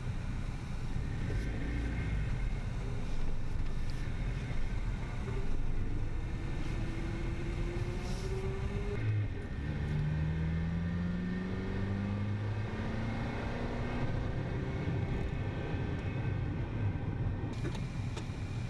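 Honda Civic's D16Y7 four-cylinder engine pulling under acceleration over a steady low road rumble. The engine note climbs, drops at a gear change about nine seconds in, then climbs again as the car pulls in the next gear of its newly fitted manual gearbox.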